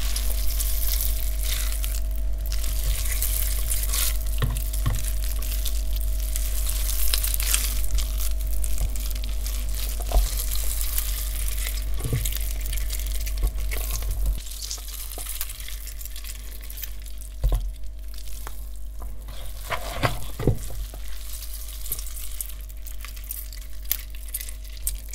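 Hands kneading and squeezing mixed minced meat in a plastic bowl: continuous wet squelching and squishing with irregular sticky smacks, a foley sound for flesh wounds. It grows softer about halfway through.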